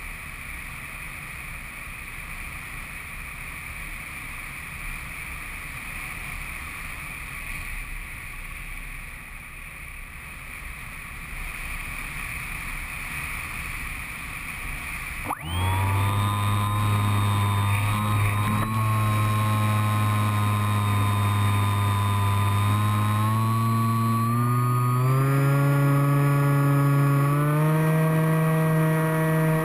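Steady whirring hum of the Bixler's electric motor and propeller with wind rush. About halfway through, an abrupt cut gives way to loud, sustained stacked tones that step up in pitch three times near the end.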